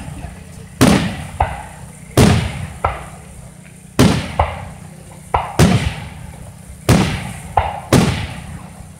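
Aerial firework shells bursting overhead: about a dozen sharp booms at uneven intervals, some in quick pairs, each trailing off in an echo.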